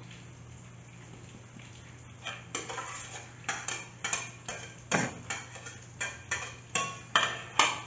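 A metal utensil knocking repeatedly against the inside of a stainless steel pot, starting about two seconds in. The knocks come about twice a second, each with a short metallic ring, as boiled egg and potato are chopped in the pot.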